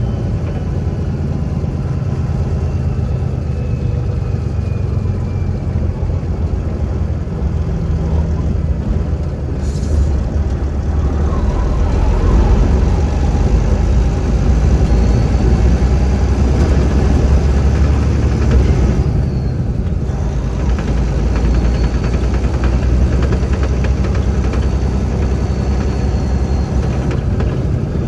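Semi truck's diesel engine running steadily, louder for several seconds in the middle before settling back.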